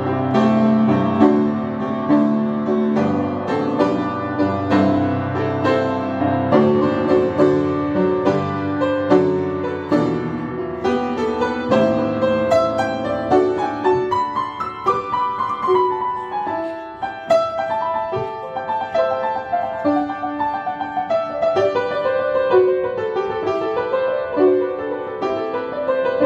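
Upright piano played with both hands, a continuous flow of notes and chords without pause.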